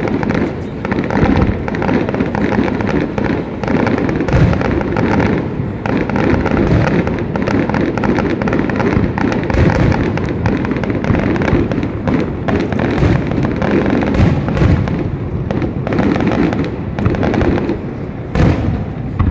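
Aerial fireworks bursting in rapid succession, booms and crackles overlapping with hardly a gap.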